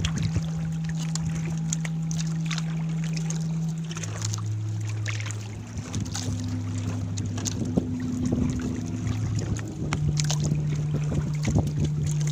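Gill net hauled up by hand over the side of a wooden outrigger boat: water dripping and splashing off the mesh, with small knocks and clicks against the hull. Under it runs a steady low drone that drops in pitch about four seconds in and returns to its first pitch near ten seconds.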